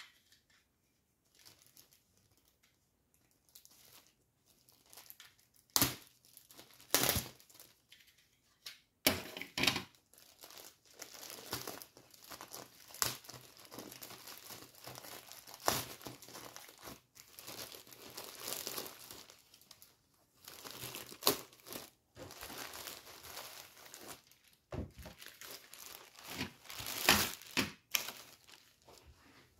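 Clear plastic poly bag crinkling and tearing as it is opened by hand and a T-shirt is pulled out. The sound comes in irregular bursts with several sharp, loud crackles.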